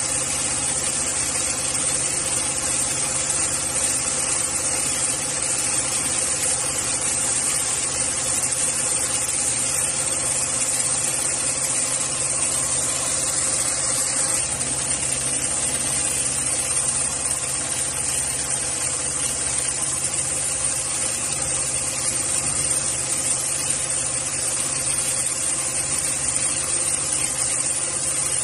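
Automatic industrial sewing machine running steadily while it stitches thick polyester lifting-sling webbing, a constant mechanical hum with a steady tone.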